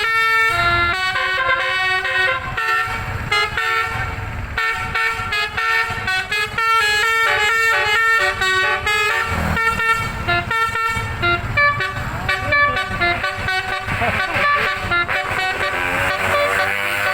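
Bus 'telolet basuri' multi-tone air horns playing a continuous tune: short notes stepping quickly up and down in pitch, with fast runs and trills.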